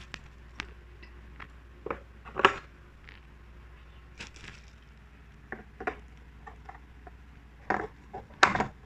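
Parts of an electric grill's stand being slotted together by hand: scattered clicks and knocks. The loudest comes about two and a half seconds in, with two more near the end.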